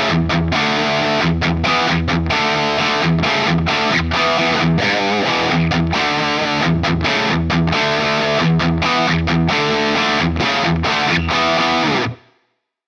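Distorted electric guitar playing a rhythmic riff of chugs broken by short, sharp stops, its tone shaped by a speaker-cabinet impulse response in a TC Electronic Impulse IR loader. A wavering bent note comes about five seconds in, and the playing cuts off suddenly about twelve seconds in.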